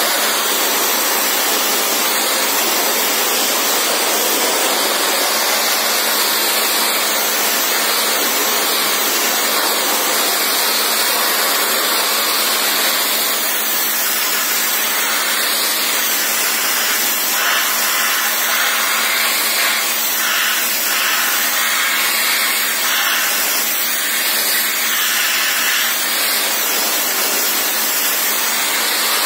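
High-pressure washer jet hissing steadily as it blasts water through the fins of a dirty radiator core, over a steady low hum. The hiss flickers in the second half as the jet is moved across the core.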